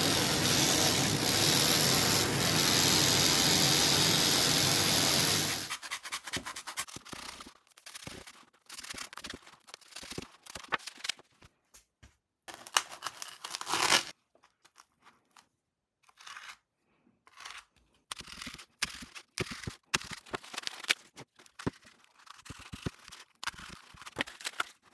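A corded handheld power tool runs steadily while cutting a foam sponge and stops about six seconds in. After that come quiet, scattered crackles and scrapes of a blade cutting into a foam pool noodle.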